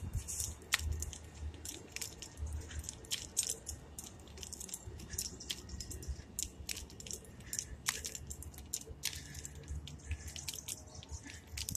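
Footsteps of a person walking on a concrete sidewalk, a soft thump about once a second, under many scattered clicks and rustling close to the microphone.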